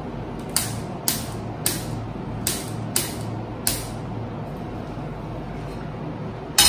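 A handheld spark gas lighter clicking six times to light a gas stove burner, each click sharp with a short ringing tail. A steady low hum runs underneath, and a louder knock comes at the very end.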